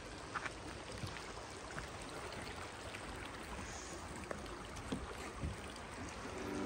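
Shallow mountain creek flowing and trickling faintly, an even water hiss with a few small ticks.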